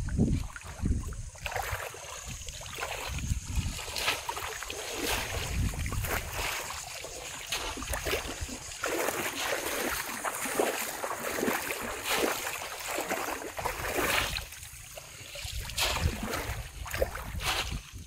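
Repeated splashing and sloshing as a bamboo polo fish trap is plunged over and over into shallow, muddy pond water by someone wading.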